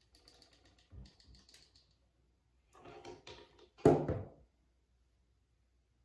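Small clicks and rustles of hair being wound on a curling iron and pinned up with clips, with a sharper knock about four seconds in.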